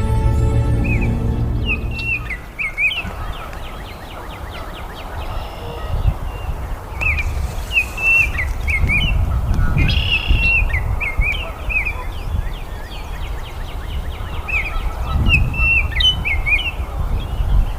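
Baltimore oriole singing: short phrases of clear whistled notes, repeated every second or two, over a steady low background rumble. Intro music fades out in the first two seconds.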